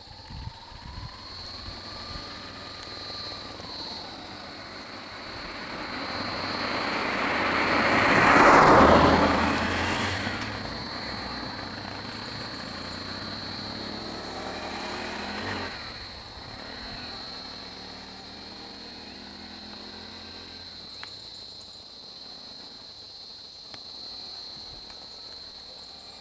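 A vehicle passing on the road: its sound swells to a peak about eight or nine seconds in, then fades. A second, quieter one passes near the middle. A steady high thin whine runs underneath throughout.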